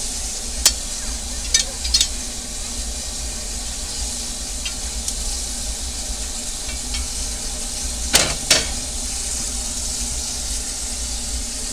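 Steady hiss of steam in the cab of a narrow-gauge steam locomotive while the fireman rakes the open firebox with an iron poker, with a few sharp metal clanks in the first two seconds. A louder double knock comes about eight seconds in.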